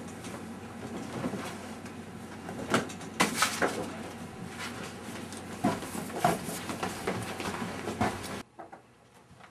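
Handling noises: rustling of cloth and paper with scattered sharp knocks and clicks as a bag and papers are rummaged through. The sound drops off abruptly near the end.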